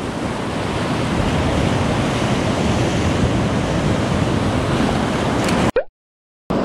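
Sea surf washing and breaking over shore rocks, a steady rushing, with wind on the microphone. The sound cuts off abruptly near the end for under a second, then returns.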